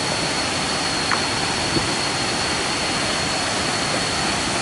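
Steady rush of falling water from a waterfall, an even hiss with no breaks, with a thin, steady high-pitched whine running above it.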